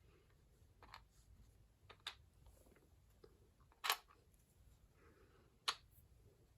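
Small Lego bricks set down one at a time: a few faint, sharp plastic clicks a second or two apart, the loudest about four seconds in.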